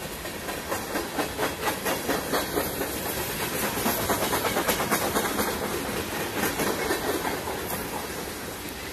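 Train passing, its wheels clattering over the rail joints several times a second over a hissing rumble, swelling to its loudest mid-way and then fading.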